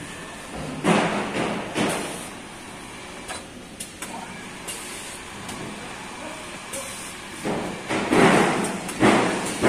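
A few knocks and clunks, two about a second in and a louder run of them near the end, over steady background noise.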